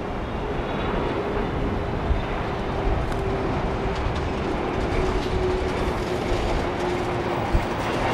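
Airbus A330 twin-engine jet on final approach, its engines giving a steady roar with a faint tone that slowly drops in pitch as it passes. A couple of brief knocks stand out, the sharpest about seven and a half seconds in.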